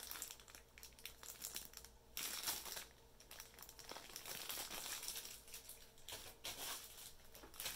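Plastic parts bags crinkling and rustling as they are handled, faint and uneven, with louder stretches about two seconds in and around the middle.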